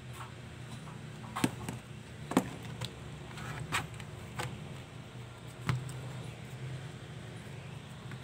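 Sharp plastic clicks and knocks of an Asus A44H laptop being handled as its battery is unlatched and pulled out, about six in all, the loudest two near the start, over a steady low hum.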